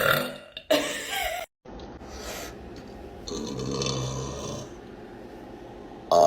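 Young women burping: a short burp with a sliding pitch about a second in, then a lower, longer, quieter burp around the middle.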